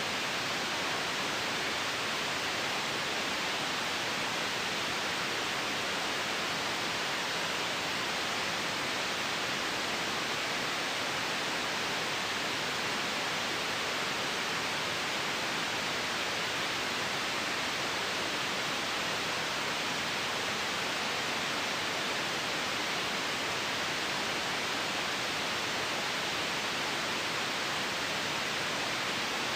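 Steady white noise: an even, unchanging hiss, brighter in the upper range and thin in the bass.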